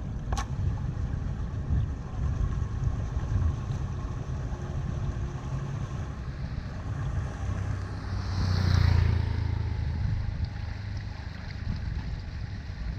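Rushing water with a steady low rumble. It swells louder for a moment about eight to nine seconds in, and there is a single sharp click just after the start.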